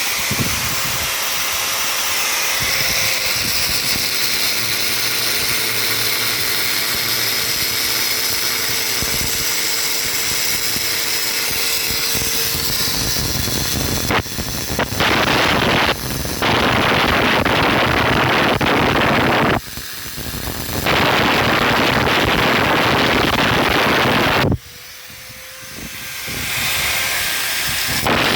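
A power tool running. For about fourteen seconds it makes a steady noise with a faint humming tone. It is then followed by loud stretches of hissing, grinding noise that start and stop abruptly several times.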